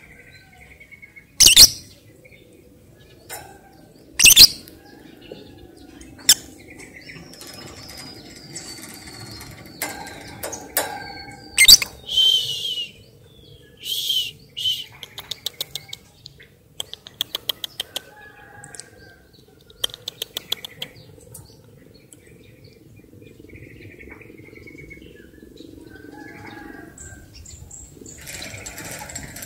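Pet lovebird calling: short, sharp, loud shrieks and chirps spaced a few seconds apart, with a run of rapid ticking chatter in the middle.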